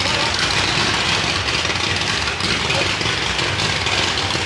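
Fireworks display going off in a steady, dense crackle and rumble, with no single bang standing out.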